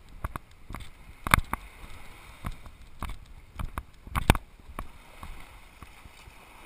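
Walking footsteps on sand picked up through a body-worn action camera as a run of irregular thumps and knocks, about one or two a second, with two louder knocks about a second and a half in and just after four seconds.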